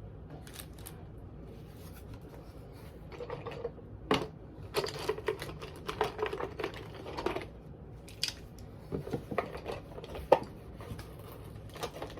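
Small items being handled and packed into a cardboard shoebox: scattered light clicks and taps, with a busier stretch of rustling and rattling in the middle.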